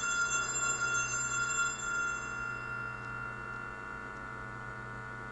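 Altar bells rung at the elevation of the host during the consecration, their ringing dying away: the higher tones fade out a few seconds in, leaving one fainter lingering tone. A low steady mains hum lies beneath.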